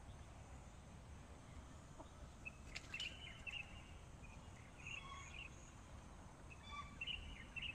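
Faint bird calls: three short bursts of chirping, about two seconds apart, over a low steady background rumble.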